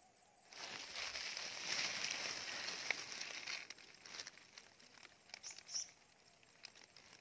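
Dry grass and weeds rustling and crackling close up as a hand is pushed in among them at the water's edge, a dense rustle for about three seconds, then scattered crackles and clicks that die away.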